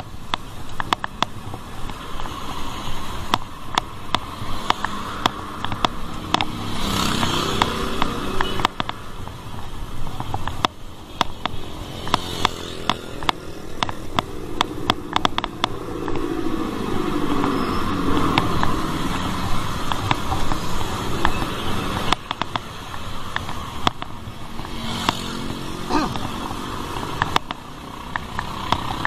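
Road traffic heard from a moving bicycle: motor vehicles passing, one about midway with its engine pitch sliding down as it goes by, over steady wind and road noise with many small clicks and knocks.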